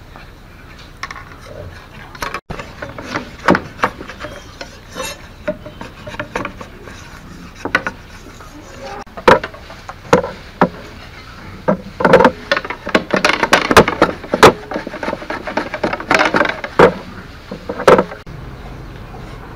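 Machete blade working a bamboo strip against a wooden chopping block: irregular sharp knocks and rasping scrapes, sparse at first and coming thick and loud in the second half, then giving way to a quieter steady hiss near the end.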